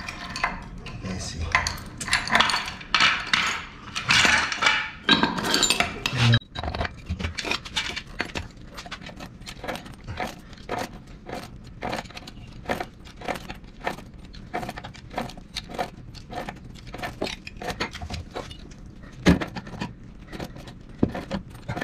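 Steel chain pipe wrench working a threaded fitting on a water pump's port: chain links clinking and jangling at first, then, from about six seconds in, a long run of short metallic clicks, a few a second, as the wrench is ratcheted back and forth to tighten the fitting.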